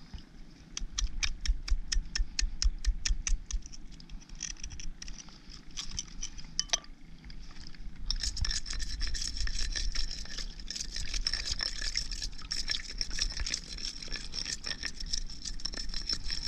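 A small claw hammer tapping rapidly and evenly against a cluster of oyster shells for about three seconds, then a few scattered knocks. From about eight seconds in, steady scratchy scraping and rubbing of rough shell, clicking as it goes.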